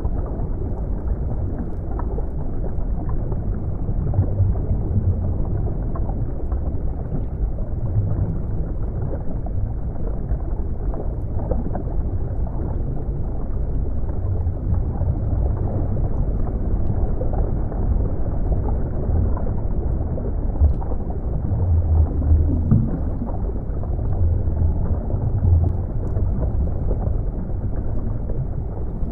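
Underwater water ambience: a steady, muffled low rumble of moving water, with scattered faint ticks.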